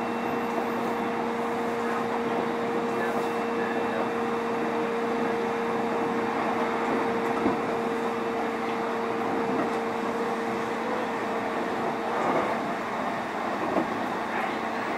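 Interior sound of a JR East E531 series electric multiple unit motor car: a steady two-pitch hum over a continuous rush of noise. A faint knock comes about halfway through, and a short stir of noise near the end.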